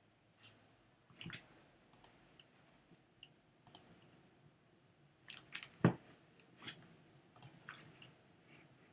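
Scattered light clicks and taps at irregular intervals, with a slightly heavier knock about six seconds in.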